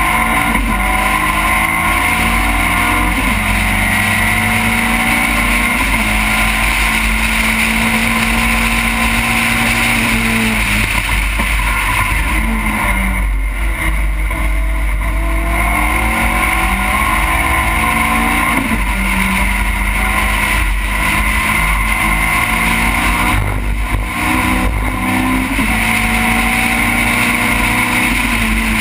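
Seven-style race car engine heard on board at racing speed, revving up through the gears with several quick upshifts. About halfway through it lifts off and drops back for braking, then pulls hard again through more upshifts.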